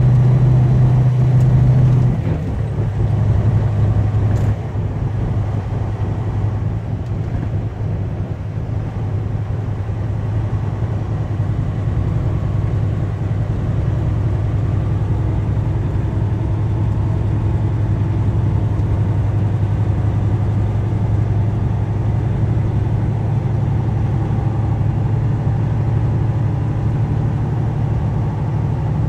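Heavy truck's diesel engine droning steadily inside the cab while driving, over an even road noise. The engine note drops slightly about two seconds in.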